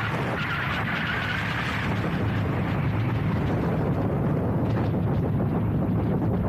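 Motorcycle riding at road speed: wind buffeting the mounted microphone as a steady low rumble over the running engine, with a higher hiss that fades about two seconds in.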